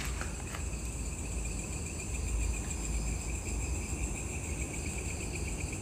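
Night insects chirping in a steady, fast-pulsing high trill from the surrounding undergrowth, over a low rumble.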